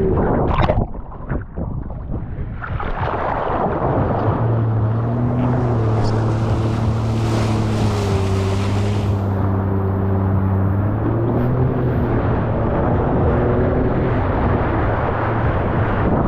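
Wind buffeting the microphone over rushing ocean water. From about four seconds in, a watercraft engine runs at a steady pitch that steps slightly up and down.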